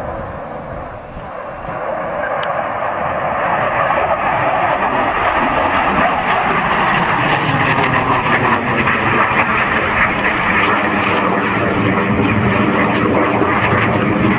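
Aircraft passing overhead at an airshow: loud engine noise that swells about two seconds in and stays strong, its lower tones slowly falling in pitch.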